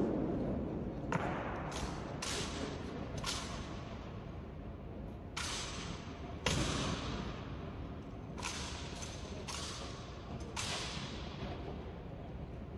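Honor guard rifle drill: a series of sharp knocks from rifles and boot stamps, coming about a second apart and often in pairs, each ringing on in a long echo.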